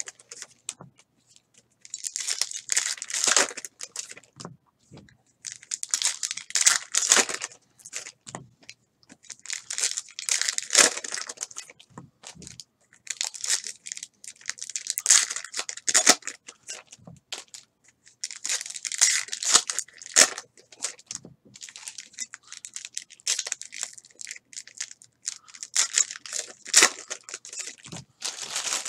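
Plastic trading-card pack wrappers being torn open and crumpled, one pack after another, in crackling bursts of two to three seconds every few seconds.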